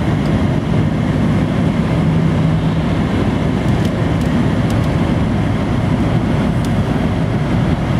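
Steady road and engine noise heard inside a car's cabin at motorway speed, tyres running on a wet road surface. A low steady drone stands out for a couple of seconds about a second in.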